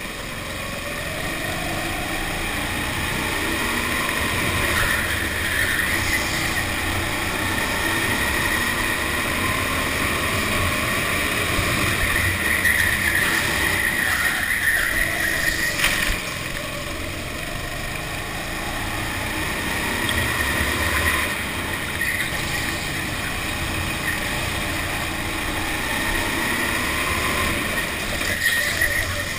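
Go-kart motor heard from on board, driven hard around a track. It rises in pitch along the straights and drops back for the corners, several times over.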